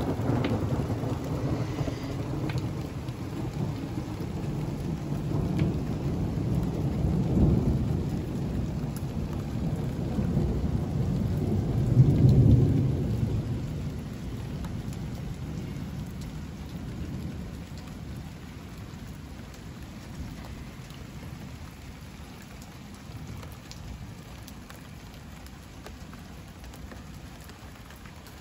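Rolling thunder rumbling over heavy rain. The rumble swells about seven seconds in, is loudest about twelve seconds in, then dies away over several seconds, leaving steady rain.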